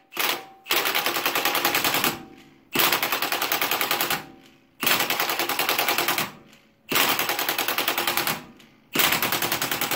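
Cordless impact wrench at its lowest setting hammering in bursts of about a second and a half: a short blip, then five bursts with brief pauses between. It is running the bolt of a homemade press, slowly drawing a new front control arm compliance bushing into the arm without binding.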